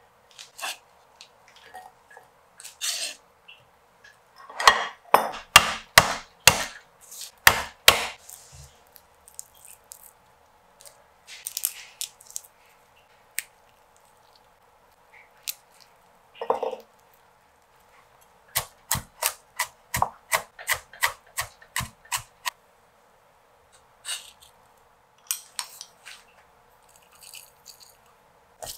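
A kitchen cleaver striking a wooden cutting board in short runs of cuts, the later run steady at about three strokes a second. Softer handling noises come between the runs.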